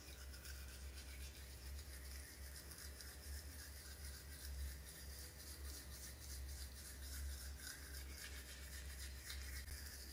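Manual toothbrush scrubbing teeth: faint, rapid scratchy strokes of the bristles against the teeth.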